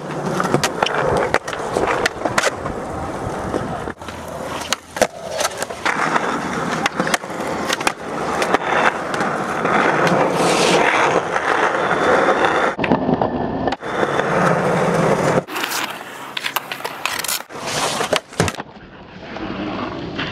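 Skateboard wheels rolling on skatepark concrete, with repeated sharp clacks of the board popping and landing. The sound changes abruptly several times where short shots are cut together.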